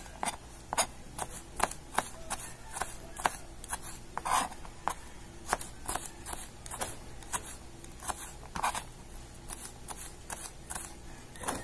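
Kitchen knife slicing a red bell pepper into thin strips on a plastic cutting board: a short, sharp tap of the blade on the board with each cut, irregular, one or two a second.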